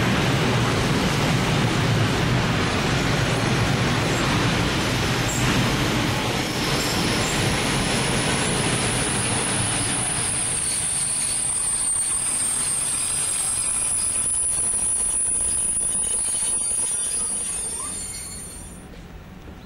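Freight train of high-sided open wagons rolling past close by, with a steady high-pitched wheel squeal from about eight seconds in. The sound fades near the end.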